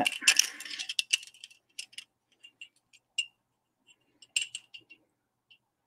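Small clicks and clinks of a knotted pearl strand handled against a metal ruler while it is measured. The clicks come thickly at first, then as scattered ticks, with a short flurry near the end.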